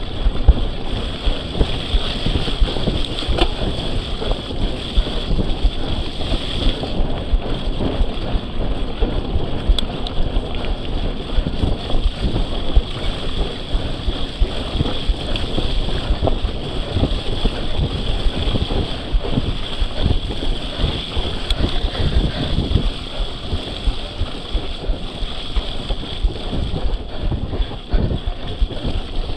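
Wind buffeting the microphone over the steady rumble and rattle of an Orbea Alma cross-country mountain bike ridden at tempo on a muddy trail, with its tyres and drivetrain clattering.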